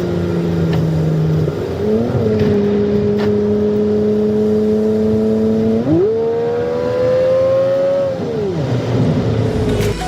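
Car engine running under way: its note holds steady, climbs sharply about six seconds in as it accelerates, keeps rising for about two seconds, then drops away as the throttle is let off.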